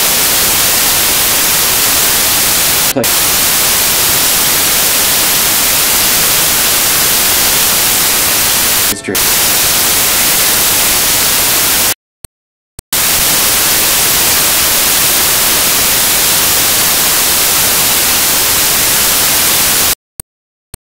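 Loud, even static hiss like white noise. It briefly dips twice, then cuts off abruptly to silence for about a second midway, with a couple of clicks in the gap. It resumes, then cuts out again near the end, with more clicks.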